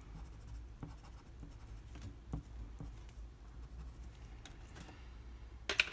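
Colored pencil scratching lightly on paper in short shading strokes, building up a fur texture. A couple of sharp clicks come just before the end.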